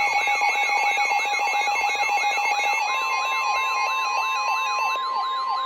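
Electronic siren-like alert tones: a rapid yelp sweeping in pitch several times a second, layered with steady and stepping beeps. The stepping beeps stop about five seconds in.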